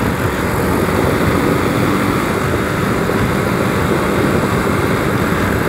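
Motorcycle running steadily at cruising speed on the highway, its engine drone mixed with a steady rush of road noise.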